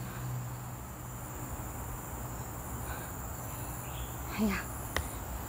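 Insects in the forest keep up a steady high-pitched buzzing chorus. A brief short call is heard about four and a half seconds in, and a sharp click comes just after it.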